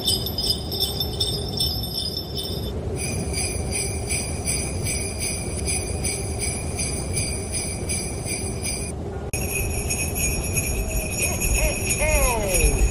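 Sleigh bells on a reindeer harness jingling in a steady shaking rhythm, a few strokes a second, with a brief dropout about nine seconds in. A steady low rumble runs beneath them.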